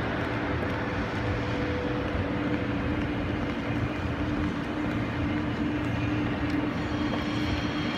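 Steady background din of a large railway station hall: a constant hum with two steady tones over an even wash of noise.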